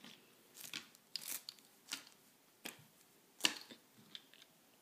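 Die-cast toy cars being handled and set down on a paper sheet: about half a dozen scattered light clicks and rustles, the sharpest about three and a half seconds in.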